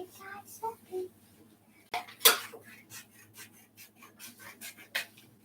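Scissors cutting scrapbook paper: an irregular run of short snips and clicks, the sharpest about two seconds in.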